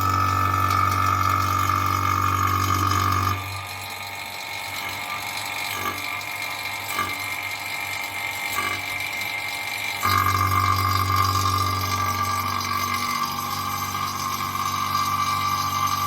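Electric pump motor running with a steady hum, set for refrigeration work. It drops in level about three seconds in and comes back up about ten seconds in.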